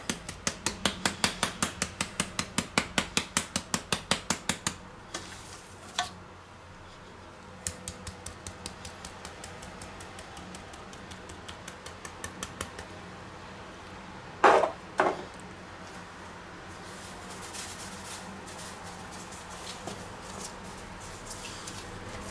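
Seasoning shaken from a spice shaker over pork steaks in a steel bowl: a fast, even rattle of about six shakes a second for the first four seconds or so, then lighter, scattered shaking. Two louder short noises come a little past the middle.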